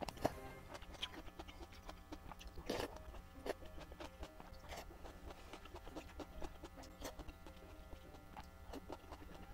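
Close-miked chewing of thick noodles in sauce, with many small wet mouth clicks and smacks and a few short slurps.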